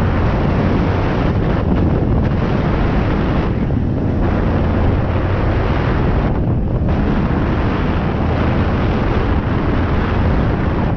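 Dirt bike riding along a dirt track, its engine running under heavy wind buffeting on the helmet-mounted microphone. The hiss eases briefly twice, about four and six and a half seconds in.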